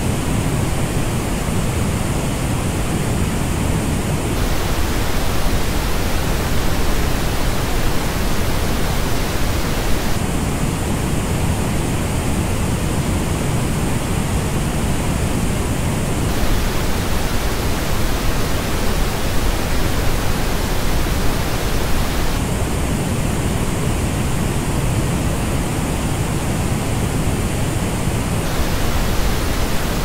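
Steady pink-noise hiss that switches every six seconds or so between the flat original test noise and the same noise as reproduced by the Corsair Virtuoso Pro headphones. In the headphone passes the noise has clear gaps in the upper mids and treble, so it sounds coloured against the even reference.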